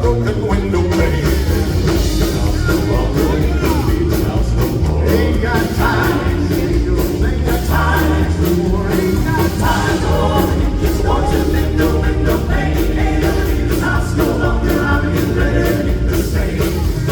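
Southern gospel quartets singing an upbeat song live, several voices over a band with bass and drums.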